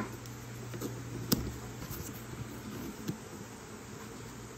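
Plastic-windowed cardboard toy box being handled, with light taps and one sharp click about a second in, over a steady low hum.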